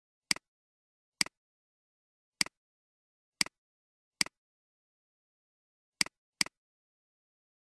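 Computer mouse button clicks, seven sharp clicks, each a quick double tick of press and release, with a pair close together near the end.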